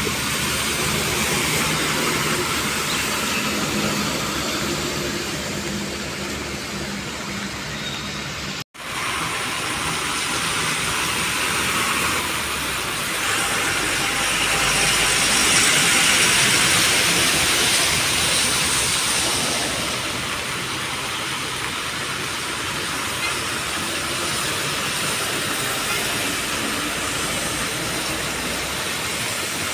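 APSRTC Super Luxury bus and heavy trucks driving through standing floodwater: diesel engines running under a steady hiss of tyres throwing up water. The sound breaks off for an instant about nine seconds in and gets louder midway as a truck passes close.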